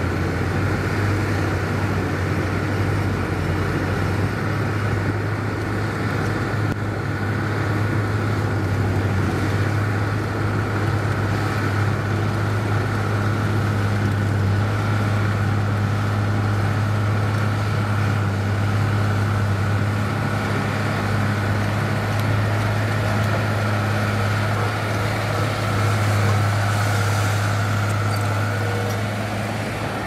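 Heavy diesel construction machinery running steadily: a constant low engine hum with no revving or breaks.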